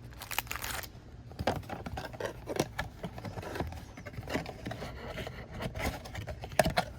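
Cardboard trading-card blaster box and its wrapped card packs being handled and pulled out: irregular scrapes, taps and light rustling.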